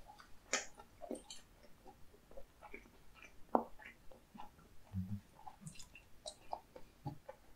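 Close-miked chewing of a mouthful of sundae (Korean blood sausage): scattered soft, wet mouth clicks and smacks, with one sharper click about three and a half seconds in.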